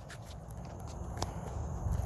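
Footsteps on grass with a low rumble from the phone being carried as he walks, and a few short sharp clicks.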